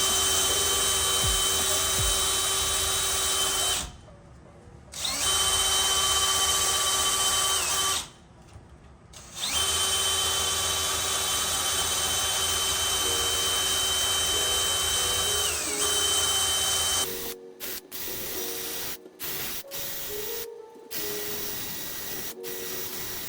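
A power drill spinning a small router bit to cut out a latch-plate mortise in a door edge: a steady high whine that runs in three stretches with two short stops. After about 17 seconds it gives way to a quieter, choppy sound with brief cut-outs.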